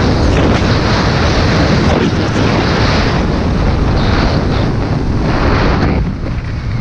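Wind rushing over the camera microphone of a fast-moving skier, mixed with skis scraping across groomed snow, loud and rising and falling in surges through the turns; it eases somewhat near the end.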